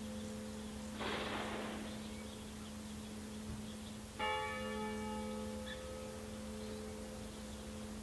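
Church bell tolling: its ringing hangs on at the start, and a fresh stroke lands about four seconds in and rings on. A short rush of noise comes about a second in.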